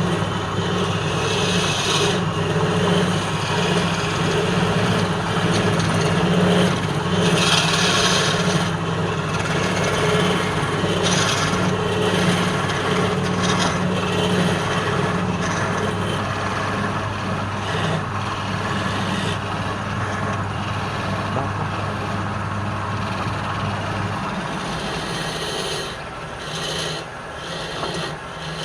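Wood lathe running with a steady motor hum while a turning tool scrapes and cuts the spinning wood, with louder rasping passes now and then. Near the end the lower part of the hum stops, and the scraping goes on more unevenly.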